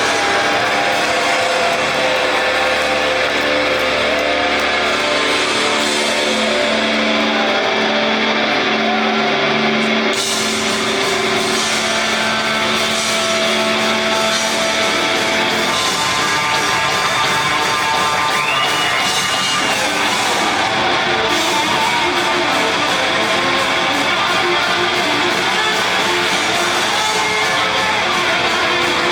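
Music with guitar, in a rock style, changing in texture about ten seconds in.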